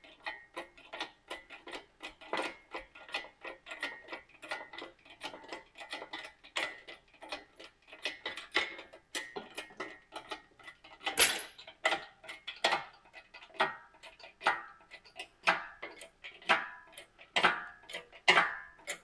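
Hydraulic engine hoist being pumped by hand to lift an engine, with metallic clicking and clinking from the pump and the hoist chains as they take the load. Rapid, dense clicks at first; from about halfway they slow to louder clicks about once a second.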